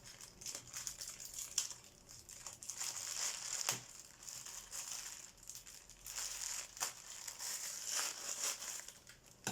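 Plastic packaging crinkling and rustling as it is handled, in irregular bursts with a few light clicks.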